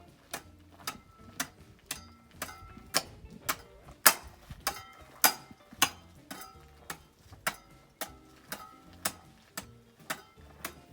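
Background music with a crisp ticking beat about twice a second, over short melodic notes and a soft bass line.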